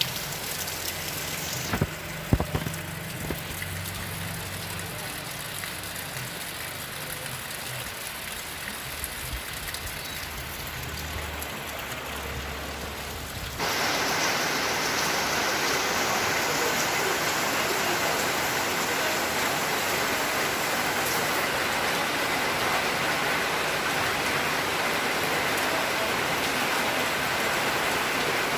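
Steady rain falling, with a few sharp clicks about two seconds in. About fourteen seconds in, the rain suddenly becomes louder and fuller, and it stays that way.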